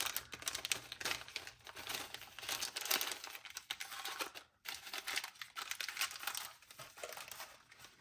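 Packaging crinkling and rustling as it is handled and unwrapped, a dense run of irregular crackles with a short break about halfway through.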